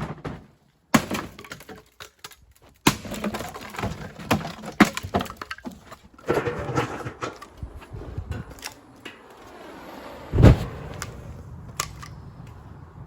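Wooden bedside cabinets being smashed apart: a run of sharp cracks, splintering and knocks, broken by brief silent gaps, with one heavy thud about ten seconds in.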